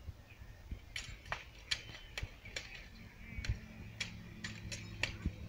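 Steel swords striking each other and plate armour in a fast, irregular run of about a dozen sharp metallic clacks, heard at a distance; the blows start about a second in and stop just after five seconds.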